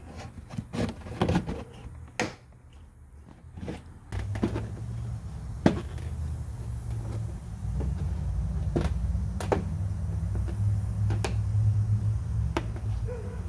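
Hands handling and pressing a plastic car bumper cover into place, with scattered clicks and knocks. About four seconds in, a steady low rumble sets in under them.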